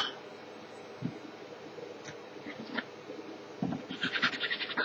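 A few faint knocks, then near the end a quick run of scraping strokes, about ten a second, lasting under a second, as a hand works the edge of a CNC-cut wooden clamp block.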